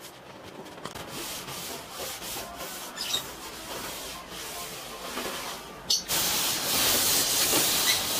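Cloth rag rubbing across a stained plywood door in repeated strokes, wiping off freshly brushed wood stain. About six seconds in, a louder, steadier rubbing over the wood takes over.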